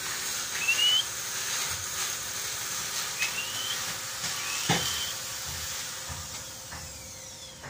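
Young white broiler chicken peeping: three short, high, upward-sliding chirps a couple of seconds apart, over a steady hiss, with a light knock at the last chirp.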